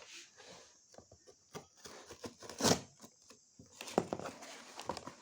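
Packaging being handled and opened: scattered rustling, crinkling and tearing with small knocks, the loudest a short tearing burst about two and a half seconds in and a sharp click about a second later.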